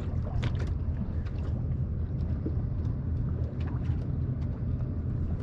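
Wind and water noise around a small boat at sea: a steady low rumble with a few faint ticks.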